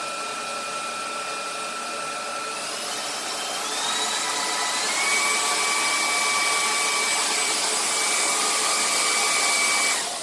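VICSONIC cordless stick vacuum cleaner running with a high motor whine that climbs in pitch and gets louder a few seconds in as it speeds up, then is switched off near the end, the whine falling away as the motor spins down.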